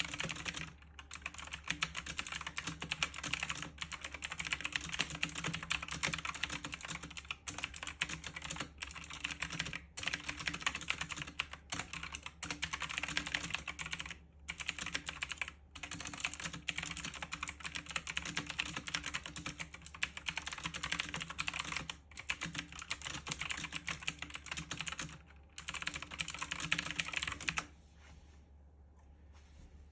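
Fast typing on a computer keyboard: a dense run of keystroke clicks broken by short pauses, stopping near the end.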